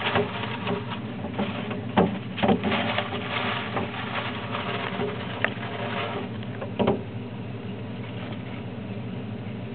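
Shredded newspaper bedding rustling and crinkling as a small mouse scurries and burrows through it, with a few sharper crackles: one at the start, two about two seconds in, and one about seven seconds in. A steady low hum runs underneath.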